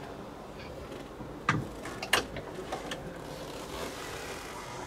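Wooden cabin door and its latch being handled: a knock with a dull thud about a second and a half in, a louder sharp click half a second later, then a few lighter clicks.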